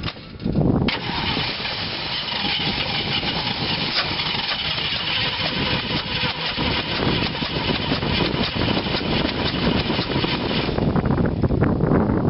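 GMC 366ci big-block V8 in a school bus catching about half a second in after cranking, then running loudly with a rushing hiss over it; near the end the hiss drops away and the engine runs rougher and lower.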